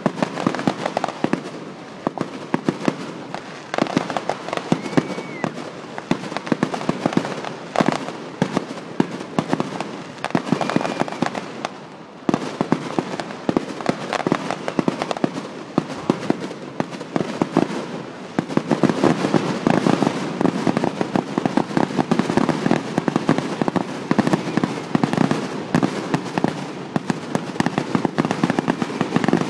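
Fireworks display: a dense, continuous crackle of many small pops and bangs, growing fuller and heavier in the last third.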